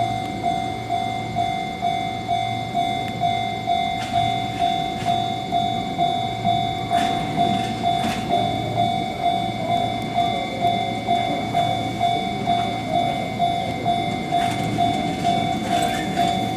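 Railway level-crossing warning bell ringing in an even, repeating clang, about one and a half strikes a second, while a Fujikyuko Line electric train rumbles past with a few sharp clacks of wheels over rail joints.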